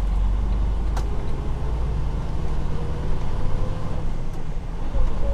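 Freightliner Cascadia semi-truck driving, its engine and road noise heard from inside the cab as a steady low rumble. A single sharp click comes about a second in.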